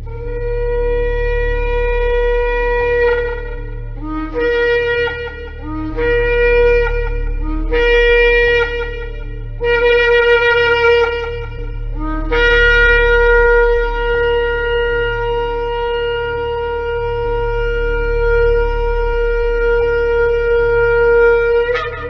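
A shofar blown in a call: one blast of about three seconds, then four shorter blasts, each breaking up from a lower note. It ends with a long held blast of about nine seconds that finishes in a brief upward squeal.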